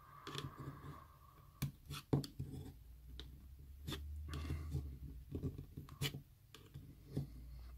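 Faint scattered clicks and scrapes of a screwdriver tip prying at the plastic latches inside a Philips Sonicare toothbrush handle, over a low steady hum.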